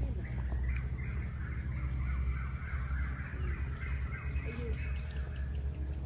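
Birds chattering in a busy, warbling stream of high calls that fades out near the end, over a steady low rumble.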